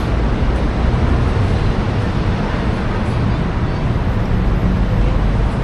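Steady, loud road-traffic noise: motor vehicles running without a break.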